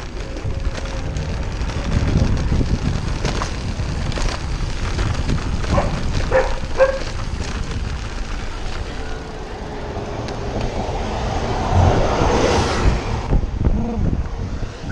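Wind rushing over the microphone of a camera on a bicycle moving through city traffic, over a steady rumble of passing vehicles. A few brief short tones sound around six to seven seconds in, and a louder rushing swell comes about twelve seconds in.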